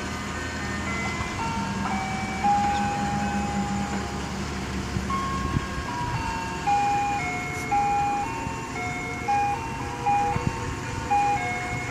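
Ice cream truck's jingle: a simple, repeating tune of clear single notes, one after another.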